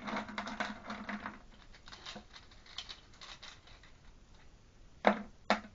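Ceramic filter rings clattering and clinking against each other and the plastic media basket of a Fluval FX6 canister filter as they are poured and pushed in, a quick run of clicks at first, then scattered ones, with two sharp louder clicks near the end.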